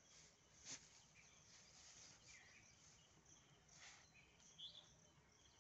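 Near silence: faint outdoor background with a couple of brief soft rustles of dry straw as a dog noses through the pile, and a few faint chirps.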